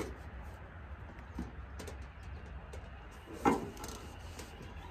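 Drain parts being fitted into a stainless steel sink by hand: a few light clicks and one sharp knock about three and a half seconds in, over a steady low rumble.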